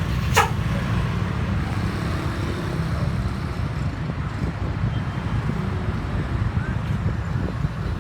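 Steady low rumble of a moving road vehicle, engine and road noise, with one brief sharp sound that drops quickly in pitch about half a second in.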